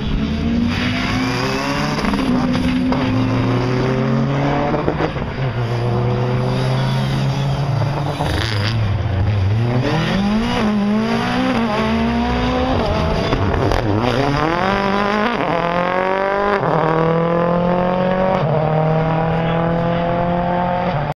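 Rally cars at full effort on a tarmac stage: engines revving hard and changing up through the gears, the pitch climbing in steps and falling away when the throttle is lifted, with two cars heard at once in places.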